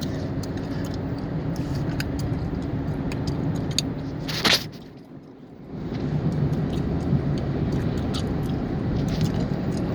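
Car cabin noise while driving: steady engine and road rumble, with scattered sharp gum clicks and smacks close to the microphone. About four and a half seconds in there is a brief loud burst, then the rumble drops away for about a second before returning.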